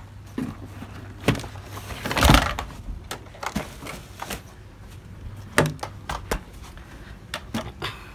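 Cardboard toy-gun boxes being handled and shifted: scattered knocks and taps, with a louder scraping rustle about two seconds in.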